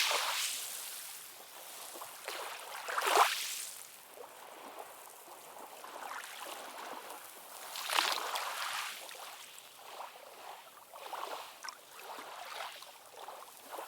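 Small, calm ocean waves washing and lapping against the shore, with swells breaking about three seconds in and again about eight seconds in, and softer splashes toward the end.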